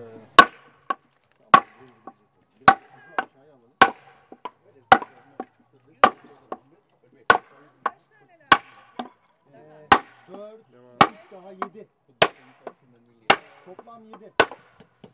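Hammer blows on a wooden block set on top of the keystone earthbag of an arch, driving the keystone bag down into place. Sharp wooden knocks come at a steady pace of about one a second, most followed by a lighter knock.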